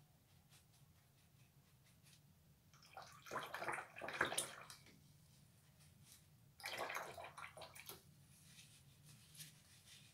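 Paintbrush swished and rinsed in a jar of water, in two bouts of sloshing, the second starting a little after the middle.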